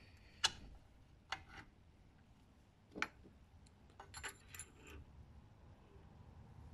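Steel shift fork clicking and clinking against the transmission gears as it is worked into a gear's slot in a Suzuki RM250 crankcase. There are a few separate light metallic taps, then a short cluster of clinks with a brief ringing jingle about four to five seconds in.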